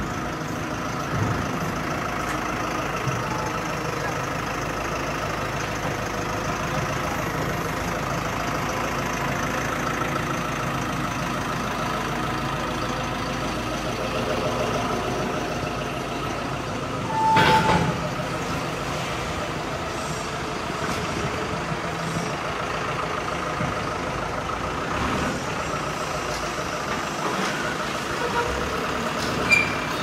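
Steady hum of engines and machinery, with a brief beep and a louder swell about 17 seconds in and a sharp click near the end.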